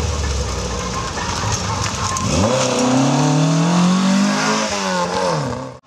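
Peugeot 205's engine pulling hard uphill at full throttle. The note sinks at first, then climbs steadily in pitch from about two seconds in and drops near the end.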